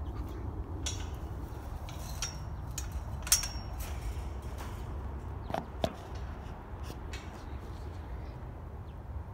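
Handling noise: a few sharp clicks and knocks, the loudest about three seconds in and another pair near six seconds, over a low steady rumble.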